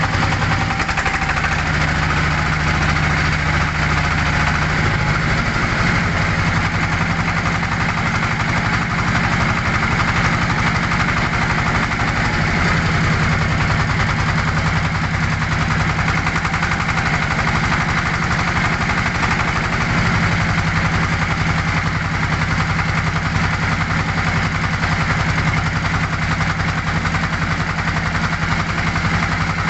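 Engine of a wooden river boat running steadily under way, its low note shifting a few times, over a constant rushing hiss of water and air.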